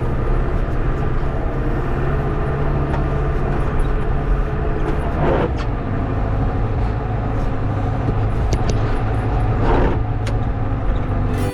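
John Deere 6400 tractor's diesel engine running steadily under load as its front loader pushes heavy, drifted snow. The engine note swells briefly twice, about five and ten seconds in.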